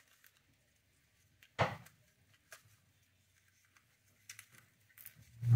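Handling of plastic headphone parts while an ear pad is worked onto the ear cup: scattered soft clicks and knocks, one sharper knock about a second and a half in and the loudest thump near the end.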